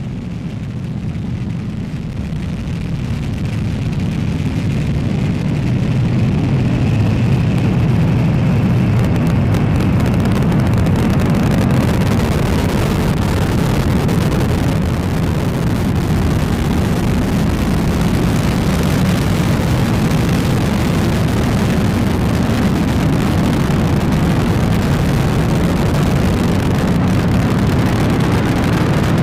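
Delta IV Heavy rocket's three RS-68A main engines at liftoff and climb-out: a deep, steady rumble of rocket exhaust that swells over the first five seconds or so, then holds.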